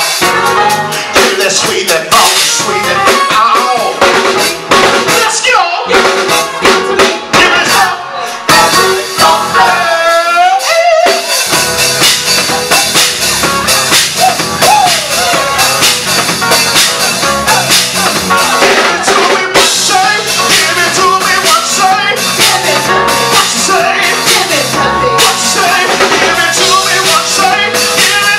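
Live funk band playing: drum kit and keyboard with singers' vocals over them. For a few seconds in the middle the low end and drums drop out under a gliding vocal run, then the full band comes back in.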